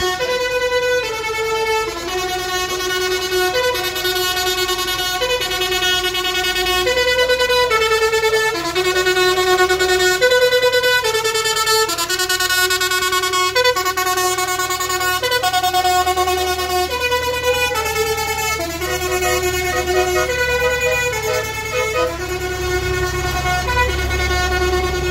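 A tractor's musical horn playing a tune, one clear note after another, over the low running of tractor engines. The engine rumble grows louder near the end as a tractor passes close.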